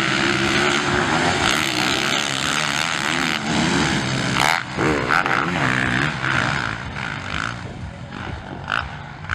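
Several motocross bikes racing on a dirt track, their engines revving up and down as the riders work the throttle. The sound is loudest in the first half and fades toward the end as the pack moves away.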